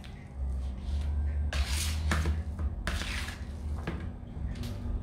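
Metal spoon scraping and scooping mashed purple sweet potato in a stainless steel tray: a few short scrapes, over a steady low hum.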